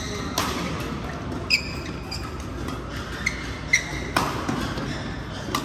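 Badminton rally: rackets striking the shuttlecock with sharp cracks, and court shoes squeaking in short chirps on the court mat as the players move. The hits ring out in a large echoing hall.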